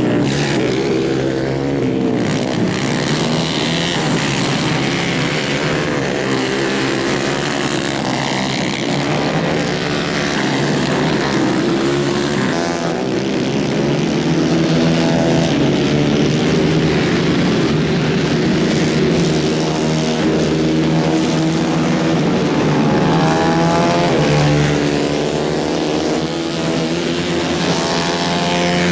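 Several 150 cc racing kart engines running at high revs, their pitch rising and falling as the karts accelerate, lift off for corners and pass by.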